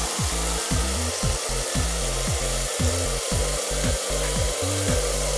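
Steady hiss of a car-wash spray bar showering down on a foam-covered car, over music with short falling bass notes.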